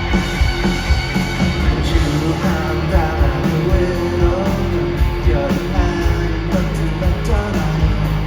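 Rock band playing, with a singer's voice over electric guitar and a steady drum beat.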